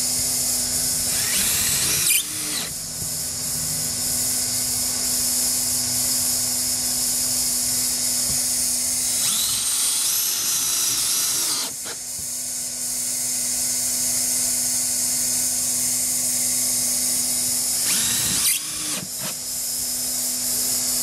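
Cordless drill-driver driving screws through a roof drain's flange into the deck, three short runs of whining spin, about a second in, about ten seconds in and near the end. Under it a steady hiss with a low hum, from a hot-air plastic welder left running.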